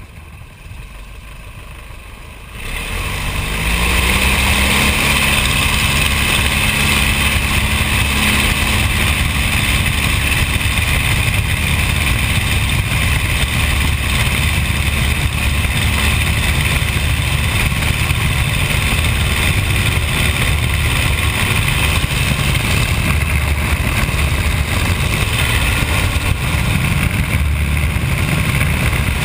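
de Havilland Tiger Moth's Gipsy Major four-cylinder engine and propeller, heard from the open cockpit. It opens up to full take-off power about two and a half seconds in, rising in pitch, then runs steadily at full throttle through the take-off run and climb.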